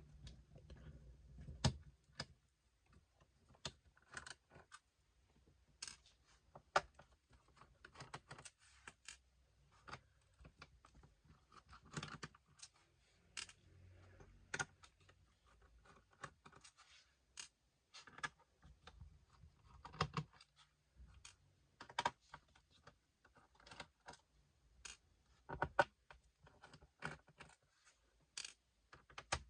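Small screwdriver working the bottom-case screws of an ASUS Vivobook 15 laptop: scattered, irregular light clicks and ticks of the bit and screws against the case.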